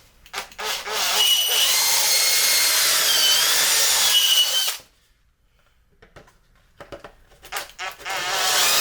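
Power drill with a 15 mm bit boring through a 3D-printed plastic part, running steadily for about four seconds with its whine dipping in pitch midway under load. Handling clicks come before it, and the drill starts again near the end.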